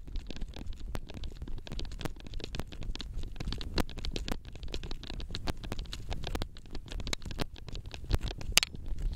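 Handheld camera carried by a person sprinting: a fast, uneven run of knocks from footfalls and the camera jostling in the hand, over a low rumble of wind buffeting the microphone.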